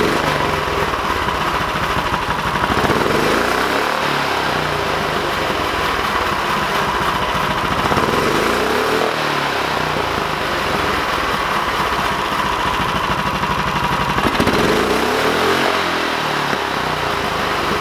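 Honda GX390 single-cylinder four-stroke engine running through a Yamaha R1 motorcycle muffler, held at a fast idle and revved up and back down three times, about 3, 8 and 15 seconds in.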